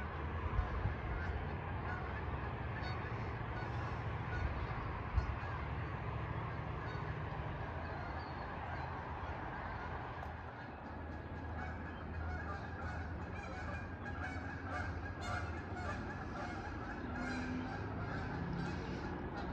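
Geese honking, many calls overlapping and growing busier in the second half, over a steady low rumble, with a single thump about five seconds in.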